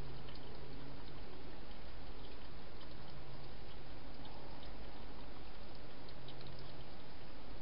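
Wild hedgehog eating from a bowl, making scattered small clicks of chewing over the camera microphone's steady hiss.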